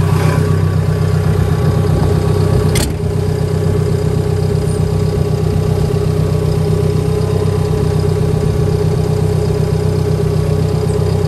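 Caterpillar D5K2 XL dozer's diesel engine idling steadily, heard from the cab. About three seconds in, a single sharp clack, the cab door shutting, after which the engine sounds a little quieter.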